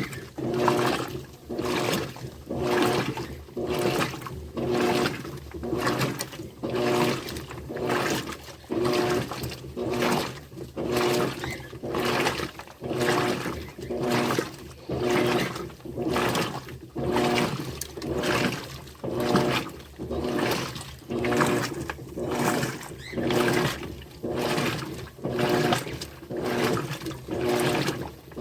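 Electrolux LTD13 Turbo top-loading washing machine agitating a load: water sloshing in regular surges about every second and a quarter, each with the hum of the motor driving the agitator stroke.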